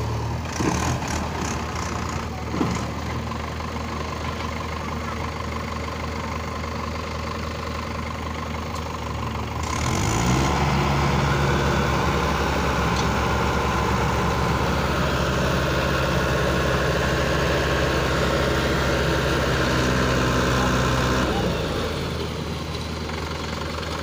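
Mahindra tractor's diesel engine running with two brief knocks near the start. About ten seconds in it revs up and holds at higher revs for about eleven seconds, working the hydraulic tipper that raises the loaded trailer bed, then drops back to idle.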